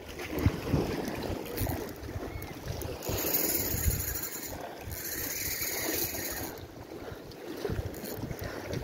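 Wind buffeting the microphone over sea surf washing against shore rocks, with two louder stretches of hissing wash near the middle.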